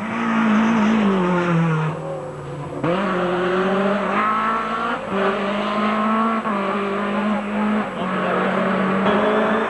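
Rally car engine coming off the revs as it slows for a hairpin, then accelerating hard away from about three seconds in, the revs climbing and dropping at each gear change.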